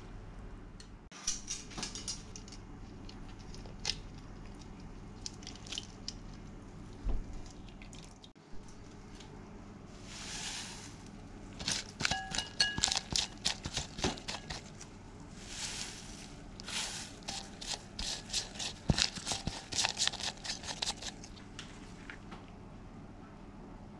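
Dry bonito flakes (katsuobushi) rustling and crackling as they are shaken from a bowl and a plastic bag into an aluminium stockpot, with crinkling of the bag and sharp clinks against the pot; a few clicks of tongs come earlier, and the busiest crackling and clinking comes in the second half.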